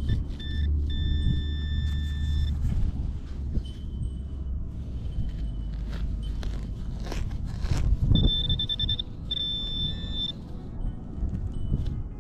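High steady beeps of a metal detector sounding over targets in the ground. They come in bursts of a second or two and pulse rapidly about eight seconds in. Scraping and knocking of digging in dirt and dry grass, and handling rumble, run underneath.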